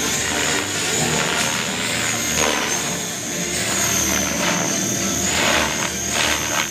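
Align T-Rex 550 flybarless RC helicopter flying overhead: a high steady whine that dips and recovers in pitch a few seconds in, over rushing rotor noise.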